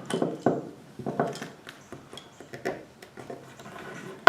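Scattered metallic clicks and rattles from a hand wire-rope crimping tool and steel cable being handled while the cable is worked in the tool's side cutter.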